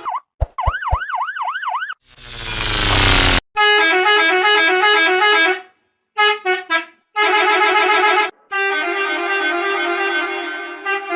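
A string of different bus horns cut one after another: a short warbling tone, a burst of rising noise, then several loud pitched horns, some stepping up and down through short tunes like musical horns, with a few quick toots in between.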